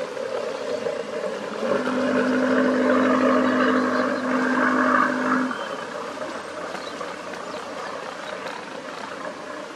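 A boat horn sounding one long steady blast of about four seconds, starting about two seconds in, over a steady background rush.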